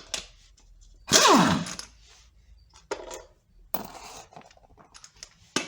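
Hand tools and metal parts clinking and scraping while the pump bolts of a C6 transmission are being worked, with one louder metallic clatter about a second in and scattered clicks after it.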